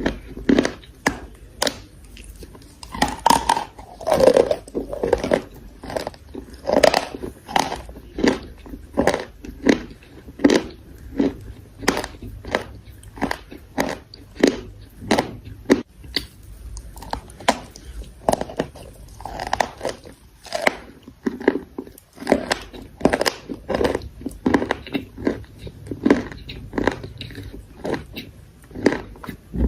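Close-miked biting and chewing of pieces of chalk coated in clay paste: a steady run of crisp crunches, about one or two a second.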